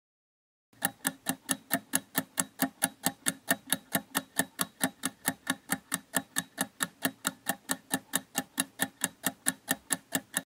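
Countdown-timer sound effect: steady clock-like ticking, about four ticks a second, starting about a second in, marking the time left to answer a quiz question.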